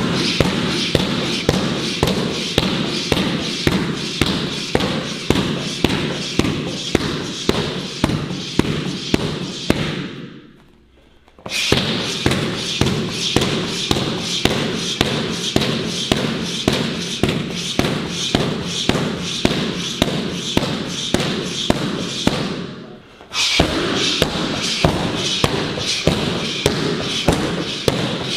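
Punches and kicks landing on Muay Thai pads in rapid succession: a steady run of thuds, several a second, that drops away briefly twice.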